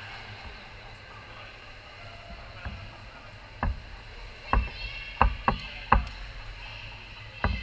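Echoing indoor swimming-pool hall with a steady wash of water and distant noise, broken in the second half by a run of six or seven sharp knocks.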